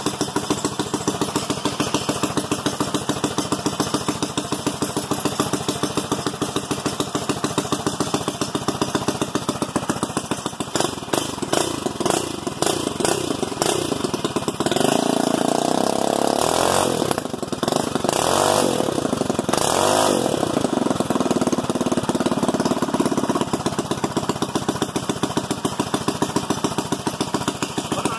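Briggs & Stratton 5 hp single-cylinder flathead engine running with an even, rapid firing beat. It is revved up and down several times about halfway through, then settles back to idle.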